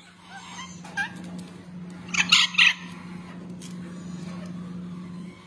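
Young parrot chicks calling while handled: a few faint squeaky calls in the first second, then three loud, harsh squawks in quick succession about two seconds in.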